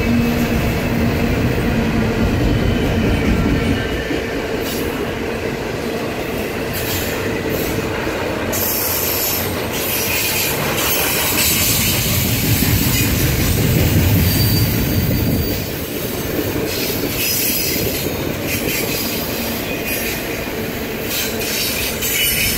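Norfolk Southern intermodal freight train's cars rolling past, steel wheels on the rails with a steady heavy rumble; high wheel squeal comes and goes from about a third of the way in.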